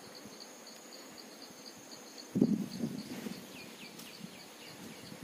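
Insects chirping in a steady high-pitched pulse, about five a second, with a thinner steady high whine that stops about two seconds in. About halfway through a sudden low thud and rumble is the loudest sound, followed by a few short falling chirps.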